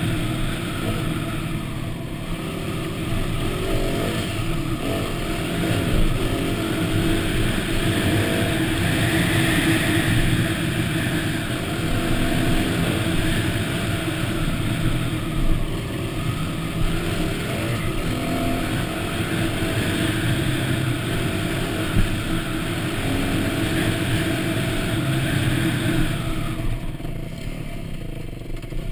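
Yamaha WR250 dirt bike engine running at cruising revs, its pitch rising and falling with the throttle, with a few sharp knocks from the bike over bumps. The engine note eases off and gets quieter near the end as the bike slows.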